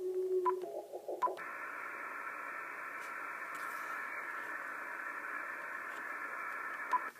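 Icom IC-7000 transceiver's speaker: a steady low tone cuts off about half a second in, two short beeps follow, then a steady, narrow-band hiss of receiver noise with the squelch open. Another short beep comes near the end.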